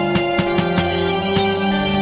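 Instrumental music with sustained synthesizer-like tones, a bass line and a regular beat.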